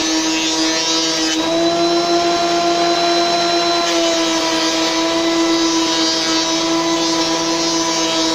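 Benchtop thickness planer running steadily: a constant motor whine over the rush of air through its dust extraction.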